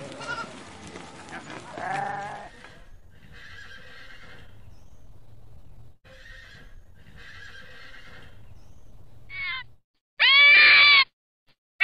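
A goat kid bleating at the start, then three quieter horse whinnies, each about a second long. Near the end come two loud, high, wavering calls from an arctic fox, the second the loudest.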